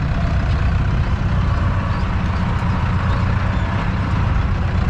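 Tractor engine running steadily, heard from inside the cab as the tractor drives along, with a deep low drone.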